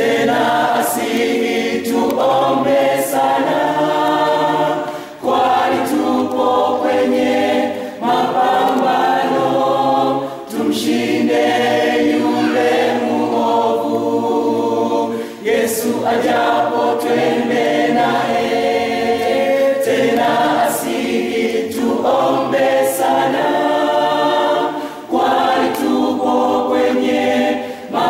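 Mixed choir of men and women singing a church song, in sustained phrases with brief breaks between them.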